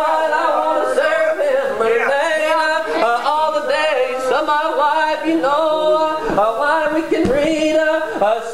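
A man's unaccompanied voice chanting in long, held, sung tones, the intoned style of preaching heard in United Baptist churches.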